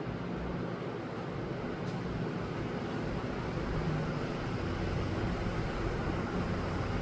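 Steady room noise: an even hiss with a low hum underneath, with no distinct events.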